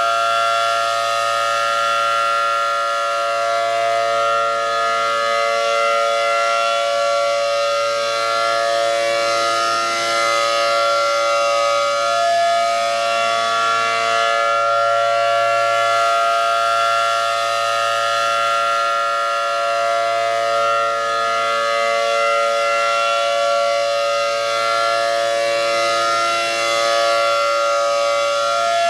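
Mobile warning siren sounding a steady, loud chord of several tones during a siren test, with the pitches drifting slightly and slowly, without pauses.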